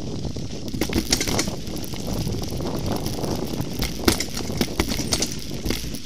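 Mountain bike riding fast over a rough dirt forest trail: a steady rumble of tyres on dirt, with sharp rattles and knocks as it goes over bumps, the loudest about a second in and about four seconds in.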